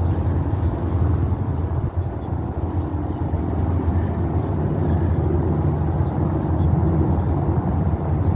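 A steady low rumble, with faint bird chirps now and then.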